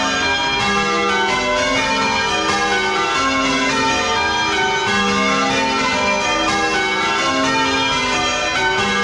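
Church bells of a ring of ten (a 10 cwt eight with two light trebles) change ringing a method, heard close up inside the belfry. It is a steady, unbroken run of strikes, each bell still sounding as the next one strikes.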